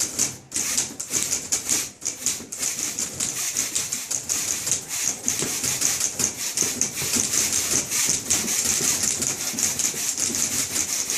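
Several manual typewriters played together as percussion instruments: a dense, fast, rhythmic clatter of key strikes.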